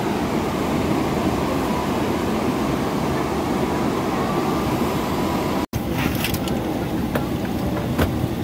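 Steady hum and hiss of an airliner cabin, with passengers' voices murmuring. The sound cuts out for an instant about two-thirds through, and a few light clicks follow.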